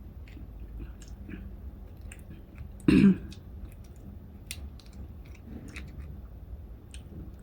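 Crab being eaten by hand: small scattered clicks and crackles of shell being cracked and picked, with chewing. One loud, short throat clearing about three seconds in.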